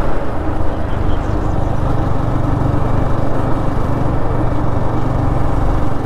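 Motorcycle engine running steadily while riding, with wind rushing over the microphone.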